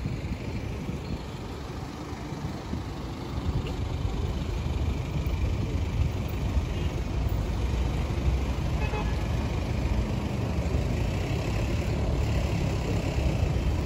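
City road traffic: a steady low rumble of cars passing on the road beside the pavement. It grows a little louder a few seconds in.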